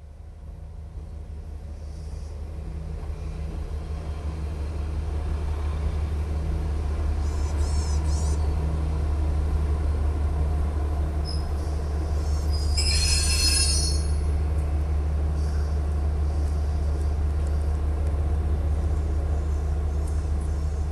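KiHa 40-series diesel railcar's engine running, a steady low drone that grows louder over the first several seconds and then holds. A brief high squeal comes about seven seconds in, and a louder high-pitched burst comes around thirteen seconds in.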